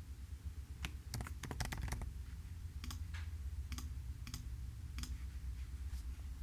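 Computer keyboard typing a quick run of keystrokes about a second in, then single mouse clicks about every half second, over a low steady hum.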